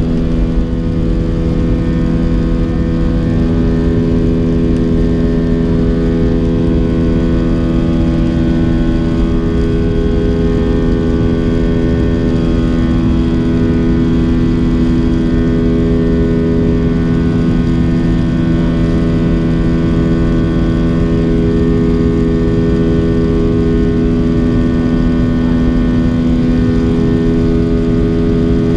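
Airbus A320 IAE V2500 turbofans at takeoff and climb thrust, heard inside the cabin from a forward window seat just after liftoff. A steady engine drone with several steady humming tones over a low rumble.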